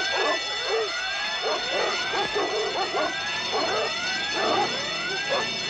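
Several dogs barking and yelping excitedly in short, overlapping rising calls, over a steady high-pitched alarm tone.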